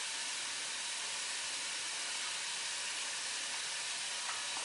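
Diced onions dry-frying without oil in a hot non-stick pot, sizzling with a steady, even hiss.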